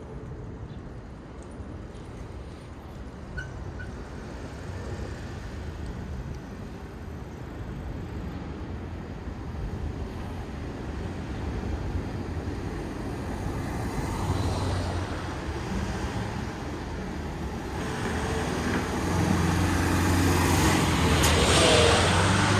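Street traffic noise: a motor vehicle's engine rumble grows louder over the last few seconds as it passes close by.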